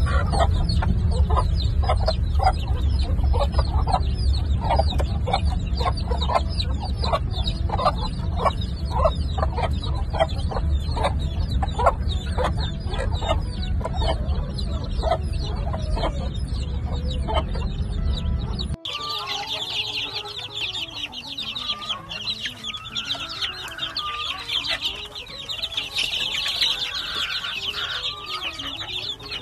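A gamefowl hen clucking steadily, about twice a second, among her peeping chicks, over a heavy low rumble. About two-thirds of the way through it cuts abruptly to a dense, high chorus of many half-grown gamefowl chicks peeping.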